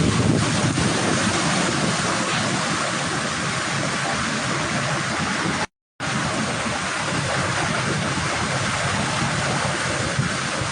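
Hurricane wind and rain: a steady rushing noise with no let-up, broken only by a moment of dead silence a little past halfway where the recording cuts.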